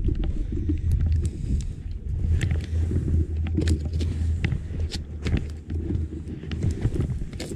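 Steady low rumble with scattered knocks and rustles, as a body-worn camera is jostled while its wearer moves about on concrete.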